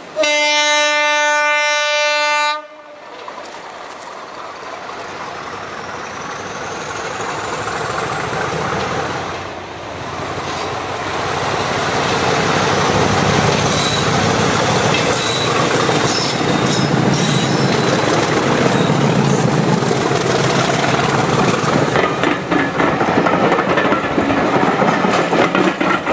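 Class 50 diesel locomotive sounding one long horn blast, then its engine grows louder as it approaches under power, with a high whine rising in pitch. Near the end the coach wheels click over the rail joints as the train passes.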